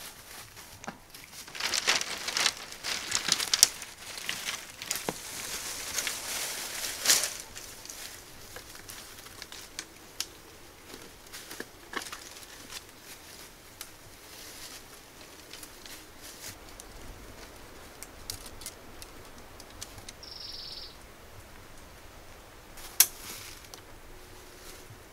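Rustling and crackling of dry bamboo strips and leaf litter being handled and stepped on, busiest in the first several seconds, then thinning to scattered clicks and snaps. A brief high chirp comes about twenty seconds in, and a single sharp snap near the end.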